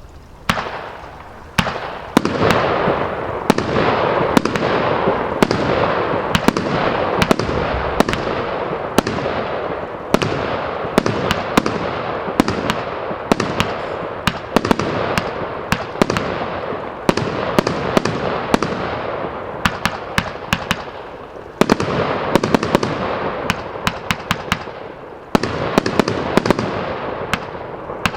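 A 100-shot fireworks mould cake firing its shots in quick succession: a rapid, irregular string of sharp bangs, several a second, over a continuous rushing hiss, with two brief lulls in the second half.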